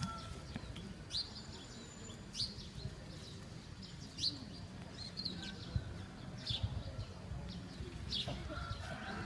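A bird chirping over and over: short, quickly falling high notes about once a second, over a low background rumble.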